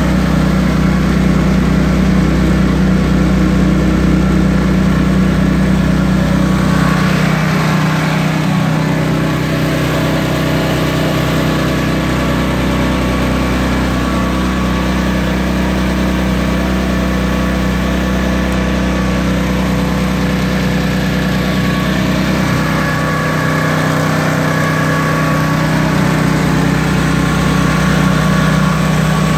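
Small Honda gasoline engine running steadily, driving the Comet pump of a soft wash system. Its note shifts slightly about seven seconds in and again near twenty-three seconds.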